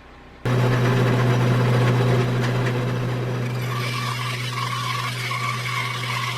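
Shop bandsaw running with a steady motor hum, coming in abruptly about half a second in; from about four seconds a higher steady whine rises over it.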